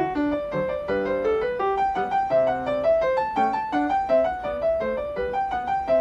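Background piano music: a steady flow of quick, separate notes.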